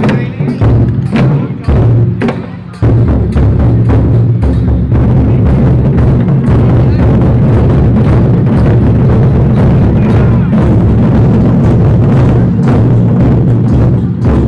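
A drum troupe beating red barrel drums together: a few separate strokes with short pauses, then about three seconds in a loud, fast, continuous run of beats.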